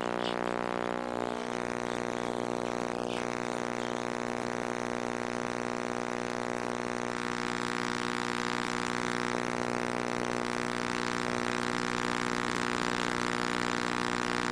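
Microwave oven running with a second, smaller microwave cooking inside it: a steady, strange vibrating hum with a buzzing edge that holds one pitch throughout. A few faint ticks come about a second in and again around three seconds.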